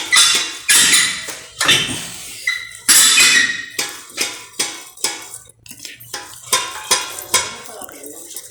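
KYB Excel-G shock absorber worked by hand off the car, giving an irregular series of sharp metallic clunks, several a second. The knock comes with no load on it: something is broken inside the shock.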